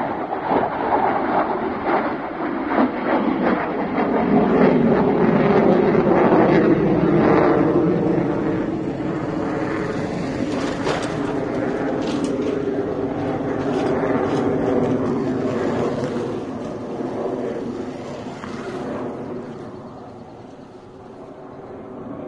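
Jet roar of an Su-30MKI fighter's twin AL-31FP turbofans as it manoeuvres, a rough rumble that slowly wavers in pitch. It swells to its loudest about five to eight seconds in and fades after about sixteen seconds.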